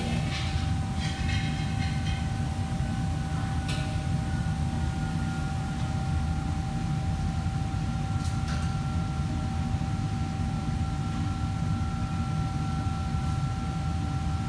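Steady low rumble of running machinery with a constant high whine over it, and a few brief clatters of kitchenware: one burst near the start, one about four seconds in and one about eight seconds in.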